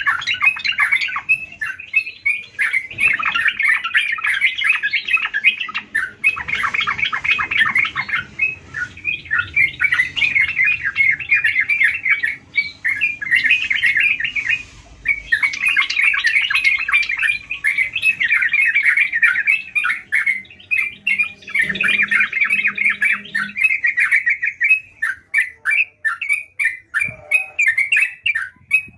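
Yellow-vented bulbul (trucukan) singing vigorously: long runs of rapid, bubbly chattering phrases with short breaks between them, thinning to separate notes near the end.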